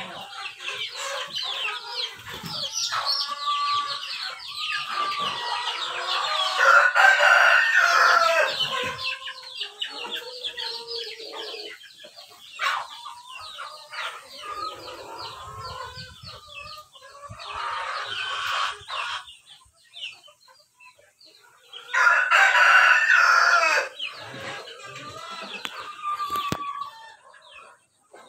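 A flock of heritage chickens clucking and calling throughout, with roosters crowing loudly several times: about a quarter of the way in, past the middle, and again near the end.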